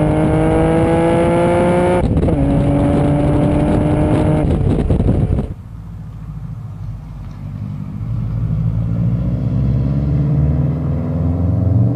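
Nissan Skyline R34 GT-R's twin-turbo straight-six heard at its exhaust tip, accelerating with the pitch climbing, dropping at a gear change about two seconds in and climbing again. About halfway through it gives way to a 2009 Subaru Impreza WRX with an N1 exhaust, its turbo flat-four rumble low at first and growing louder as the car approaches.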